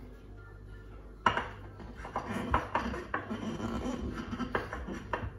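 Kitchen dishes and utensils clattering: a sharp knock about a second in, then a busy run of clinks and knocks that stops just before the end.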